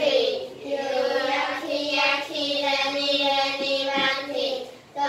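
Children singing a song, holding long notes with a few short breaks between phrases.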